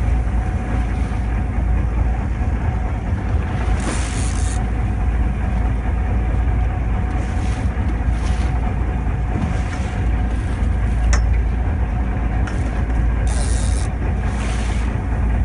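A fishing boat's engine running with a steady low drone and a constant hum, a few short hissing bursts about four seconds in and again near the end.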